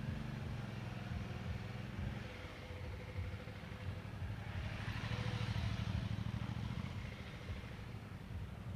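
Suzuki V-Strom's V-twin engine running at low revs through slow full-lock turns, its note rising and falling slightly with the throttle. It grows loudest about halfway through as the motorcycle passes close by.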